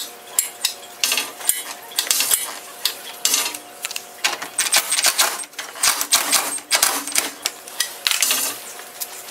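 Irregular metallic clicks, clanks and rattles of hand tools and the car's metal radiator support being handled while a screw is worked loose.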